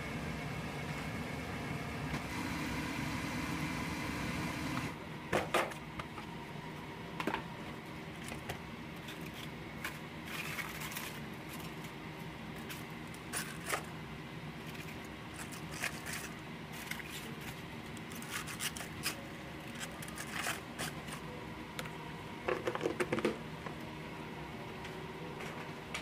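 Scattered clicks, knocks and clinks of kitchen utensils and dishes being handled over a steady low hum. The hum drops about five seconds in, and a short run of clattering comes near the end.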